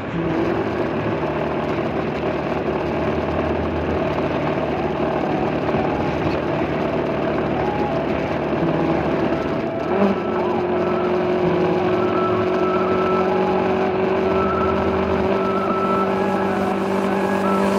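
Motorcycle engine running at a steady cruising speed, with wind and road noise over it. There is a brief bump about ten seconds in, after which the engine note holds steady again.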